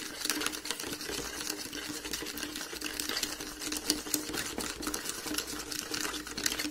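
Metal spoon stirring undissolved sugar into a shampoo-and-water bubble solution in a plastic bowl: rapid, continuous clicking and scraping of the spoon against the bowl.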